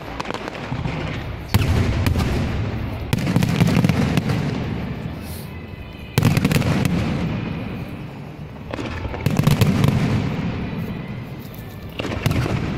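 Aerial firework shells bursting: five loud booms a few seconds apart, each fading into a long rumble, over continuous crackling.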